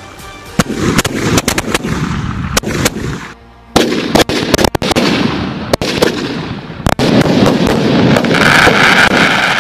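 Fireworks going off: a rapid, dense string of sharp bangs and crackling, with a short lull about three and a half seconds in. Near the end it turns into a steady loud crackle.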